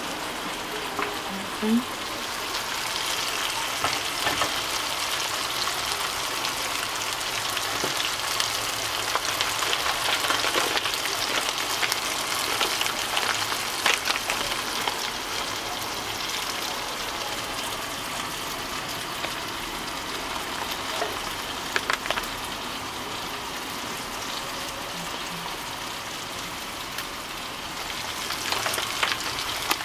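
Blended dried-chilli paste frying in hot oil in a wok: a steady sizzle with many small scattered pops, growing louder near the end.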